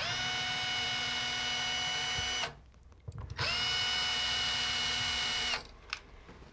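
Cordless screw gun running in two bursts of about two seconds each, its whine rising quickly to a steady pitch and then stopping, as it backs out the mounting screws of a wall outlet receptacle.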